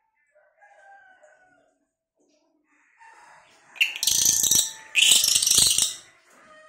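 Bird calls: faint thin chirps, then two loud, harsh calls about four and five seconds in, each lasting under a second.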